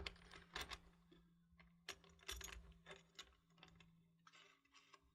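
Faint, irregular metallic clicks and clinks of solar racking hardware being handled as a tilt leg is fitted into its U-foot, thinning out toward the end, over a faint steady hum.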